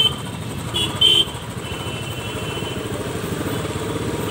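Motorcycle engine running in stop-and-go city traffic, with short, loud horn honks near the start and about a second in. After that the engine sound grows gradually louder.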